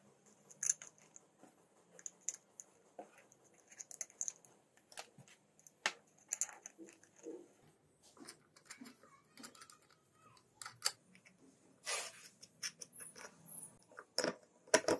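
Scattered, irregular light clicks and taps of small parts and hand tools being handled.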